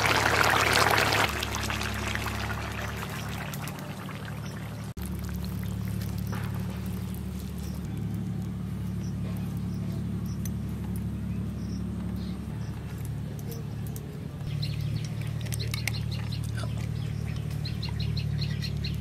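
Fish curry boiling hard in an aluminium wok, bubbling loudly for about the first second. After that a low steady hum continues, with bird chirps near the end.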